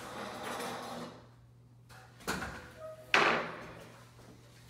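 Steel-framed platform deck of a ladder scaffold being lowered onto a concrete floor: scraping and rattling at first, a couple of knocks about two seconds in, then a loud metal clank with ringing just after three seconds as it comes down.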